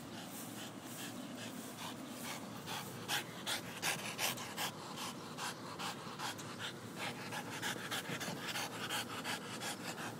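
Boston terrier panting and licking a rubber exercise ball: quick, rapid breaths and wet licks, about four or five a second. They grow louder about three seconds in.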